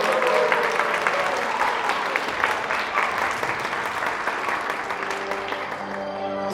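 Audience applauding, a dense patter of clapping that thins out toward the end. The last sung note of a song dies away at the start, and a new piece of music starts to come in near the end.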